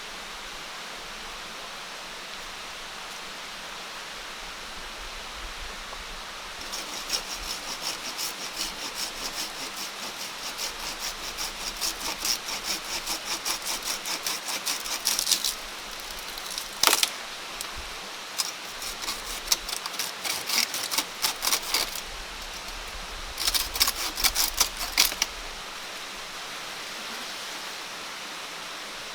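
Steady hiss of water in the background, with runs of quick, sharp strokes from hand work, about four a second, and one louder sharp knock about seventeen seconds in.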